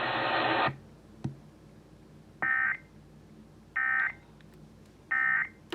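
A steady hiss cuts off just under a second in, then three short identical bursts of warbling electronic data tones about 1.4 seconds apart: the Emergency Alert System end-of-message (NNNN) SAME header, which marks the close of the alert.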